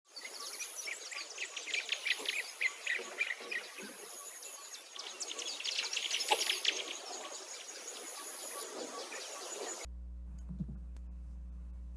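Birds chirping and trilling in a busy chorus, with a thin high-pitched steady note coming and going above them. About ten seconds in, the birdsong cuts off abruptly to a low steady hum.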